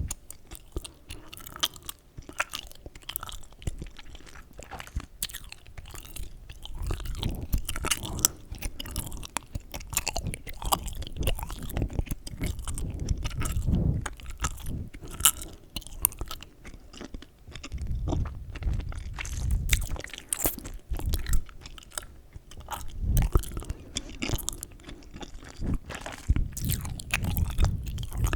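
Close-miked gum chewing: wet mouth clicks and smacks in an irregular run, over a low rumble from the jaw and breath against the microphone.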